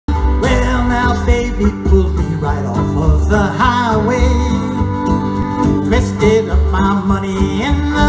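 Acoustic country trio playing an instrumental passage: fiddle carrying a wavering melody over strummed acoustic guitar and plucked upright bass.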